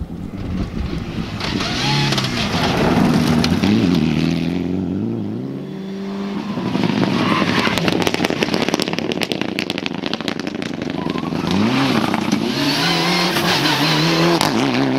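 Mitsubishi Lancer Evolution rally cars' turbocharged four-cylinder engines at full throttle. The pitch climbs and drops back at each gear change, over three passes. A stretch of rapid crackling comes about halfway through.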